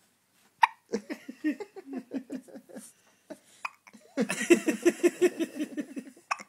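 Hiccups: three short, sharp ones about three seconds apart, with voice-like sounds between them.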